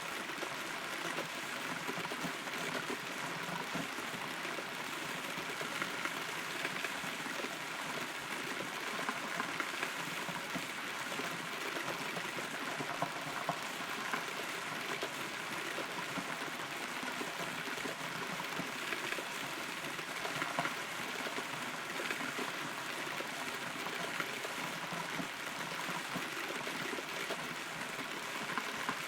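Steady rain heard from inside a hollow rotten tree: an even hiss of rainfall with many small drops tapping throughout.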